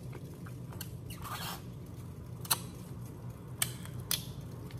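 Boiled crawfish being eaten: shells cracked and peeled by hand, with chewing. A few sharp snaps over a steady low hum.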